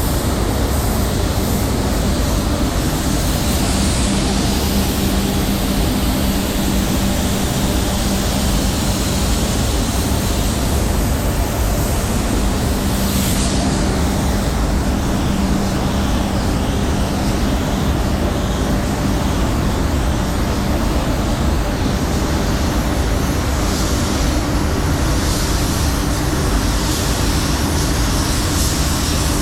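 Steady roar of air moving through a running paint spray booth, with a low hum under it and a higher hiss that swells and fades now and then.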